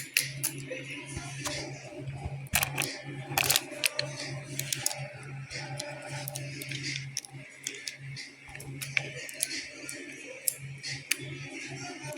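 Irregular clicks and light taps, like tools and small parts being handled during a chainsaw repair, over a steady low hum.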